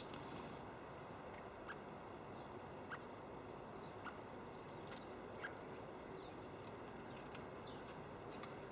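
Faint small-bird chirps and high thin calls over a steady background hiss, with a short lower call repeating about every second or so.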